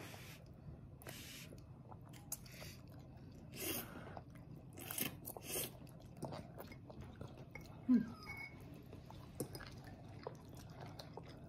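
Toddler eating spaghetti with a fork: soft, scattered chewing and mouth noises. A short, louder low sound comes about eight seconds in.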